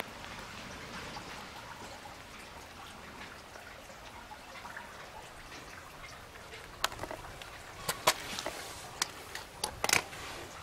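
Faint steady outdoor hiss, with a run of sharp clicks and taps over the last few seconds.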